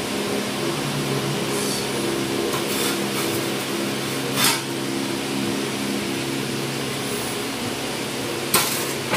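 Metal spatula scraping and clinking against a small metal baking tray as cookies are lifted off. Two sharper clinks come about four and a half seconds in and near the end, over a steady background hum.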